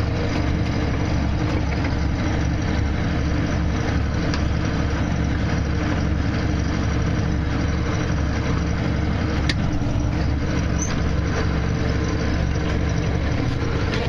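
Tractor and belt-type round baler running steadily while baling hay, heard from inside the tractor cab as a constant, even machine noise with a strong low hum.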